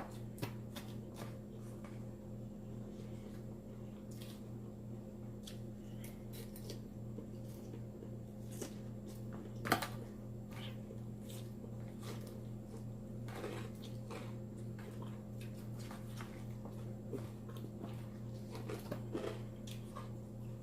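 Close-up chewing of a salad with croutons: irregular crunches and wet mouth clicks, with one louder click about ten seconds in, over a steady low hum.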